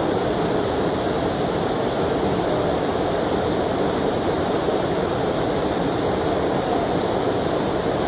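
Creek water rushing steadily over shallow rocky riffles.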